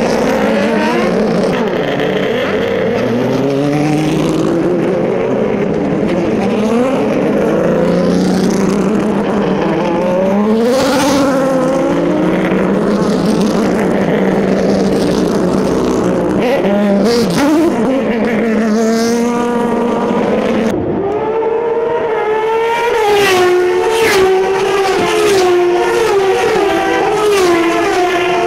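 Several Turismo Carretera race cars' engines at full throttle as the field pulls away, each revving up and shifting through the gears again and again, with more cars passing.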